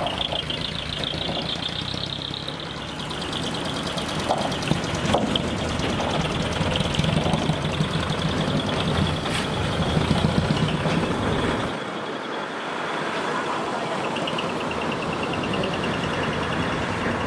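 Diesel engine of a customised light-duty dump truck running as it drives slowly past and away. The engine rumble is strongest in the middle and drops off sharply about two-thirds of the way through. A steady high pulsing buzz runs over it.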